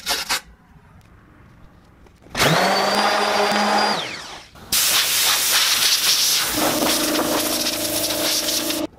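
DeWalt DWE6421K 5-inch random orbit sander with a fresh 320-grit disc. It spins up briefly about two and a half seconds in and winds down, then runs again against the steel table saw top with a steady loud hiss as it scrubs off surface rust, cutting off suddenly near the end.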